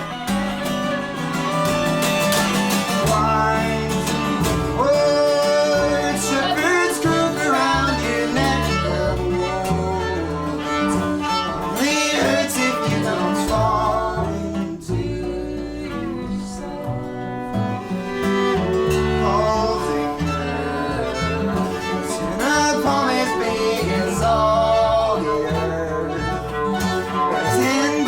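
Instrumental break of a live acoustic band: a viola plays a sliding melody over strummed acoustic guitar and bass.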